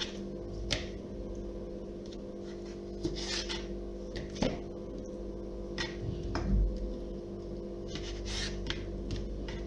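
Kitchen knife cutting raw chicken hearts in half on a wooden cutting board: a few scattered taps of the blade against the board over a steady hum.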